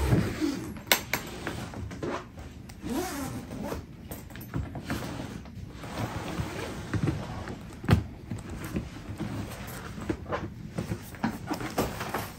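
Large Qantas Centenary hard-shell suitcase being unzipped around its edge and opened, with the zipper rasping intermittently. Scattered clicks and knocks come from the shell being handled, the sharpest about a second in and another about eight seconds in.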